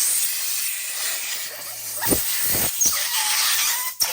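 Compressed air hissing steadily from an air compressor's blow gun, forced under a rubber bike grip to loosen it from the handlebar. A couple of dull thumps about two seconds in, and the hiss breaks off briefly near the end.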